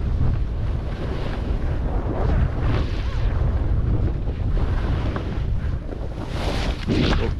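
Wind buffeting a camera microphone, a steady low rumble. It turns hissier in surges around three seconds in and again near the end.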